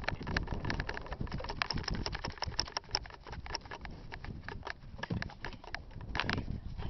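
Someone running through long grass: quick, irregular footfalls and swishing grass, with knocks from a handheld camera.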